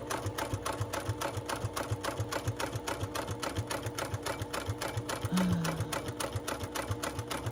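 Domestic sewing machine stitching at a steady speed, the needle clicking about six times a second over the motor's steady hum.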